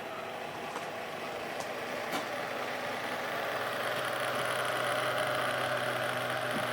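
Small DC gear motor running a fan steadily, a whirring hum with a few faint ticks, growing a little louder in the second half.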